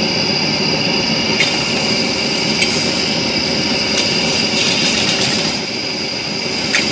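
Strips of five-layer pork belly sizzling on a hot griddle pan over a portable gas burner. The sizzle grows louder about a second and a half in as the first strip goes down, and metal tongs click against the pan a few times.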